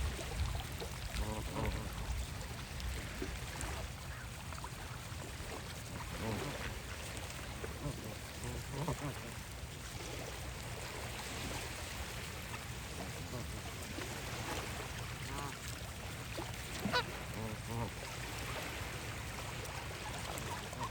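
Geese honking now and then, several separate calls with the sharpest one about three-quarters of the way through, over a steady background of lake water.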